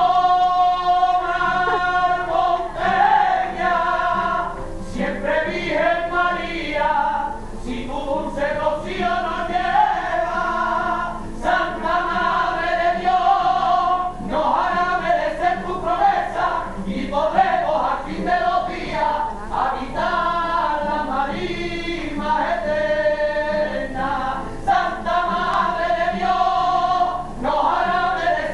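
Singing with long held notes that waver and bend in pitch, carrying on without a break.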